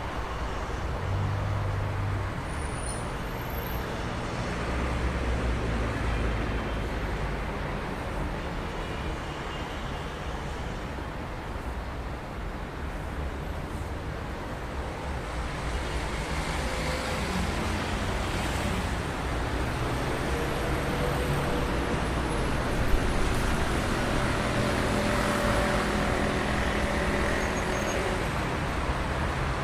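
Traffic jam: idling and creeping cars, buses and trucks, a steady rumble of engines with changing low engine notes. A brief sharp sound rises above it about 23 seconds in.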